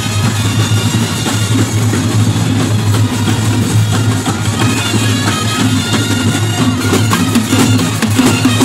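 A marching brass band plays a tune on trumpets and clarinets over steady bass drums, snare drums and cymbals.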